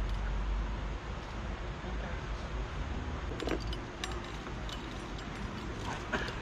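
Outdoor background: a steady low rumble, faint distant voices, and a few light clinks and clicks from about three seconds in.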